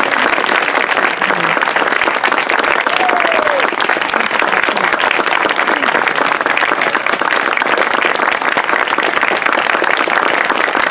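Audience applauding steadily for the cast's curtain call, a dense even clapping with a few faint voices calling out among it.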